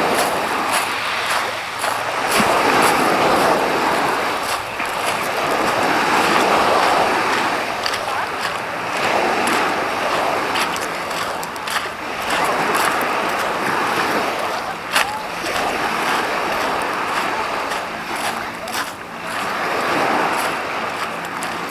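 Small Black Sea waves breaking and washing up a shingle beach, the wash swelling and fading every few seconds, with short clicks throughout.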